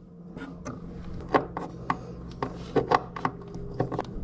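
Irregular light clicks and taps of small hardware and hand tools being handled during bus bar installation, over a steady low hum.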